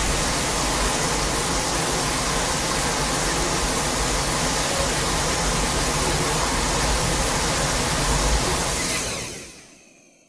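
Godzilla atomic breath sound effect: a steady rushing hiss held for about nine seconds, fading out near the end.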